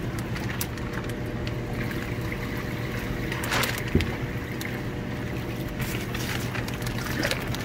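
Water sloshing and dripping as a plastic tub scoops water out of a plastic fish shipping bag, over a steady low hum; a short knock about four seconds in.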